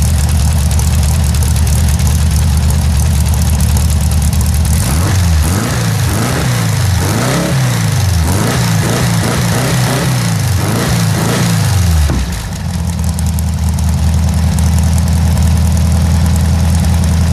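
Air-cooled Volkswagen flat-four engine with electronic ignition, running on a test stand. It idles steadily, is revved up and down several times by hand at the carburettor from about five seconds in, then settles back to idle about twelve seconds in.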